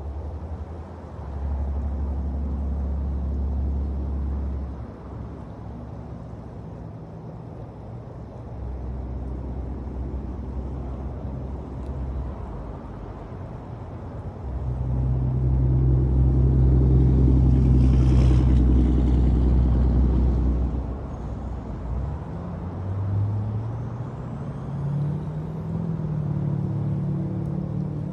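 Low engine rumble of road traffic. It swells to its loudest around the middle, and an engine's note climbs in steps near the end.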